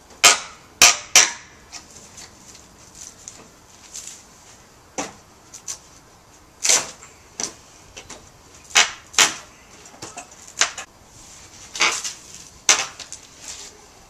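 Wooden fence boards being knocked and broken apart by hand: irregular sharp knocks and cracks of wood, the loudest three close together about a second in, then scattered strikes.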